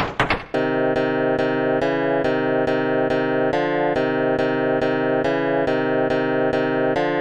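Electronic keyboard music: electric-piano-like chords restruck about twice a second, the chord changing now and then. About half a second in, it takes over from a brief run of quick tapping.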